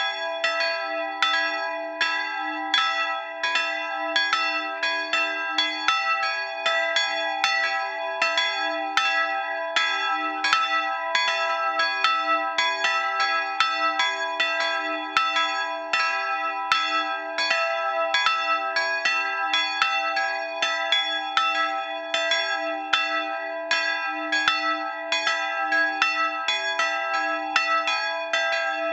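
Two 1913 bronze bells by Schilling & Söhne of Apolda, tuned to e'' and g-sharp'', swinging and ringing together. Their strokes overlap in a steady, uneven rhythm of about three strikes a second, each ringing on under the next.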